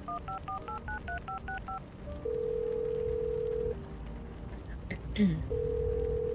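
A phone number punched in on a touch-tone keypad, a quick run of about a dozen beeps, followed by the ringing tone on the line: a steady tone of about a second and a half, twice, as the call rings out unanswered. A short click comes between the two rings.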